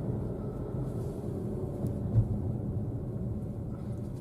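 Car cabin noise: the engine and tyres make a steady low rumble while the car drives, with a small knock about two seconds in.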